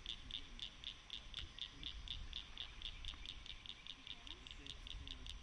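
A wild animal's high-pitched chirp, repeated steadily about four times a second, over a faint low rumble.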